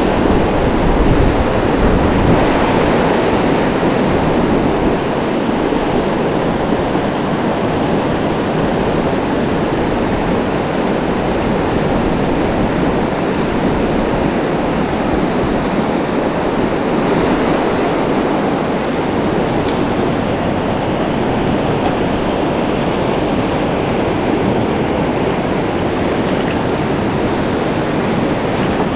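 Steady rush of a rocky mountain river's white-water riffles, water tumbling over boulders.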